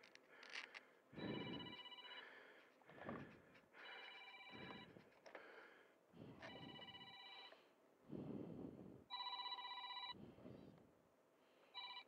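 Faint electronic trilling ring, repeating about every two and a half seconds, each ring lasting about a second, with soft rustling between the rings.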